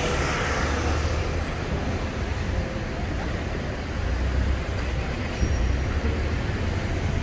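Street traffic: cars and taxis driving past, with a steady low engine rumble under tyre noise.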